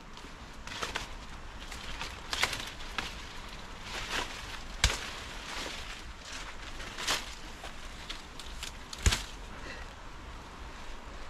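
Leafy vines and branches being pulled and torn out by hand: rustling foliage with irregular sharp snaps of breaking stems, the loudest about five and nine seconds in.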